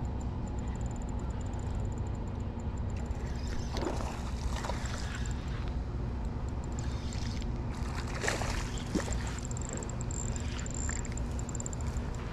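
A baitcasting reel being cast and reeled in, with a few light clicks and rattles, over a steady low rumble.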